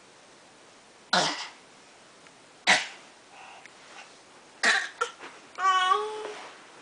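Three short breathy bursts, about a second and a half apart, then near the end a baby's brief pitched vocal sound that wavers in pitch.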